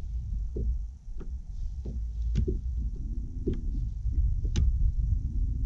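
Low wind rumble on the microphone on an open boat deck, with scattered small knocks and clicks at uneven intervals.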